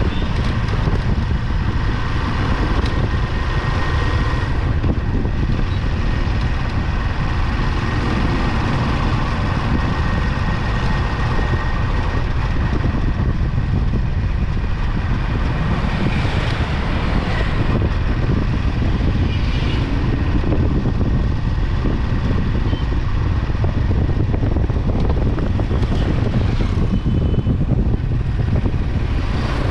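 Motorcycle engine of a Philippine tricycle (motorcycle with sidecar) running steadily while riding, heard from the sidecar, mixed with wind and road noise.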